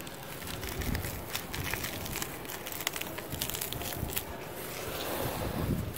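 Dry, powdery cement lumps being crushed and crumbled by hand, with many small gritty crackles as grit and powder pour down into a plastic tub.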